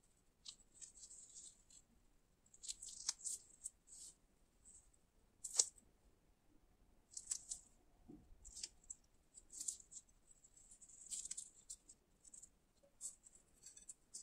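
Gloved fingers handling a chili-and-sugar-coated gummy candy strip: faint, irregular rustles and crackles of the nitrile gloves and gritty coating, with a sharper click about five and a half seconds in.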